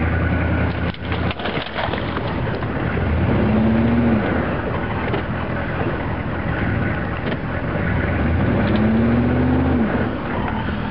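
1986 GMC pickup's 6.2-litre diesel V8 running under load while dragging a log, its revs rising and falling twice, about three seconds in and again about eight and a half seconds in.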